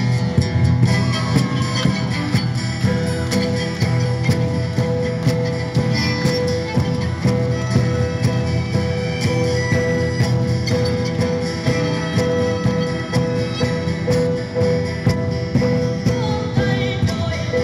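Live acoustic band music: strummed acoustic guitars with violins playing a held melody line over them.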